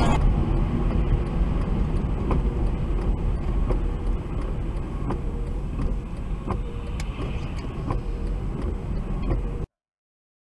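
A car driving, heard from inside the cabin by a dash cam: a steady low rumble of engine and road noise, with a few faint clicks now and then. The sound cuts off abruptly near the end.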